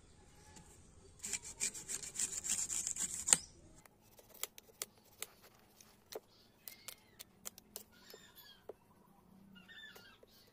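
A large steel knife shaves the fibrous husk off a tender coconut. About a second in comes a quick run of rasping strokes that ends after a couple of seconds in one sharp knock, the loudest sound. After that come scattered single cuts and taps.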